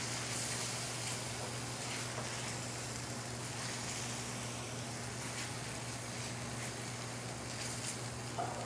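Lemongrass curry-style paste (groeung) sizzling in hot oil in a stainless steel pan as it cooks down, with the light scrape of a wooden spoon stirring it, over a steady low hum.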